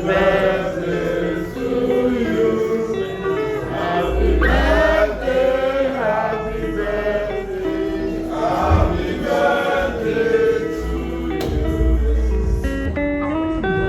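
Music with several voices singing in a choir-like, gospel style over sustained chords and bass.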